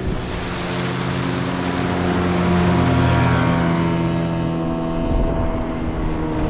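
Motorboat's outboard engine running at speed as the boat passes, a steady motor note over the rush of water, its pitch sagging slightly as it goes by.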